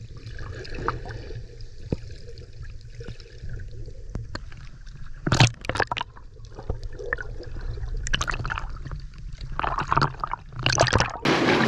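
Water sloshing and gurgling around an action camera held just under the surface, muffled and bass-heavy with small clicks, broken by loud bursts of splashing about five seconds in, around eight seconds and twice near the end. Right at the end the sound turns suddenly to a bright, open hiss as the camera comes up into the air.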